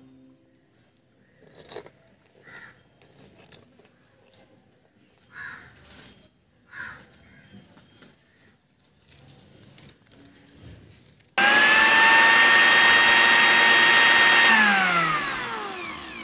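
Tiny working toy blender's small electric motor switched on abruptly, running with a steady high whine for about three seconds, then winding down with a falling pitch as it stops, blending crushed biscuits with milk. Before it, light clicks and taps of the small jar and lid being handled.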